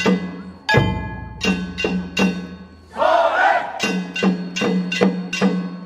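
Festival percussion accompaniment for a Nagasaki Kunchi river-boat performance: drum strikes and a ringing gong in an uneven rhythm, each strike ringing on. About three seconds in, the beating pauses for a shouted call.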